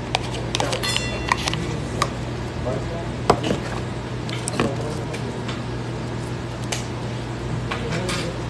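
Metal spoon clicking and scraping as a soft spread is scooped out of a plastic tub and knocked off into a stainless steel bowl, with a sharp knock about three seconds in the loudest, over a steady low hum.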